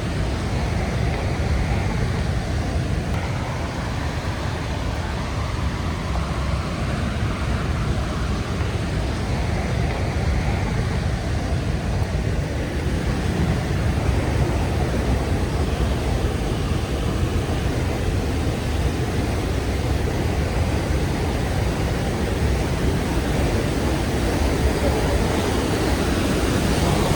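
Steady roar of the Rhine Falls, heavy water thundering down, a dense rush strongest in the low end that grows a little louder toward the end.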